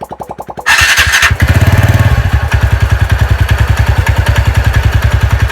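TVS Ntorq 125 scooter's single-cylinder engine bursts in loudly under a second in, then runs steadily with an even pulsing beat. This is the sound after its starter one-way clutch was cleaned and its bolt tightened to cure a tik-tik noise, which the title calls fixed.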